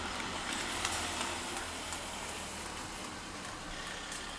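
Steady hiss of distant road traffic with a faint low hum underneath, slowly easing off.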